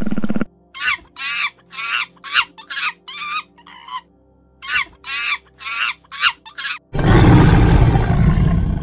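A short loud sound at the very start, then a string of about a dozen short squawking animal calls, each bending in pitch, over faint steady tones. About seven seconds in, a loud, harsh lion roar takes over.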